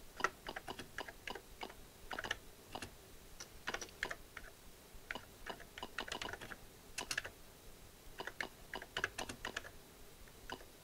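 Typing on an Atari 65XE computer's keyboard: irregular runs of key clicks broken by short pauses.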